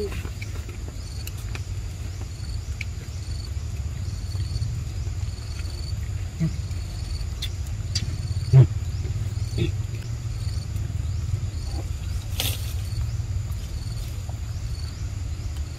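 Outdoor ambience: a steady low rumble with faint high chirps repeating evenly, about once a second, and a few soft knocks. One louder thump comes about eight and a half seconds in, and a sharp click a few seconds later.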